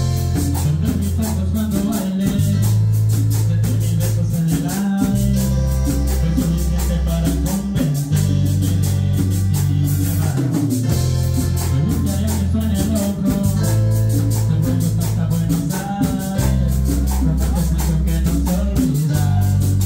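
Live band playing Latin dance music: a keyboard bass line moving in steady blocks, congas and a metal scraper keeping a dense, even scratching rhythm, with a singer.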